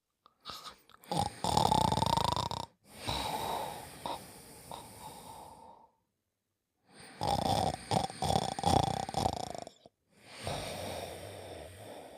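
Cartoon character snoring: two snore cycles, each a loud rattling in-breath followed by a softer, longer breath out that fades away.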